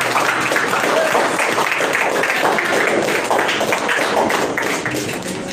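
A group clapping their hands, many irregular claps overlapping, as the singing stops.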